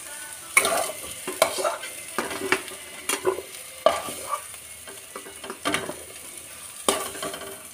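Spatula scraping and scooping fried cauliflower, carrot and peas around a hot kadai, with repeated short scrapes over a steady sizzle of oil.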